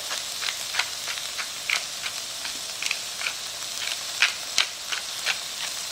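Chopped onion and sliced mushrooms frying in butter and oil in a pan: a steady sizzle with irregular sharp crackles and pops.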